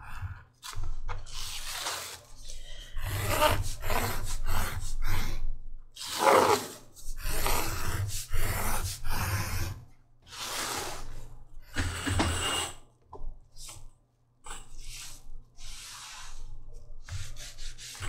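Stitching groover cutting a stitch-line groove along the edge of a leather belt strap, in a run of short scraping strokes with brief pauses between them.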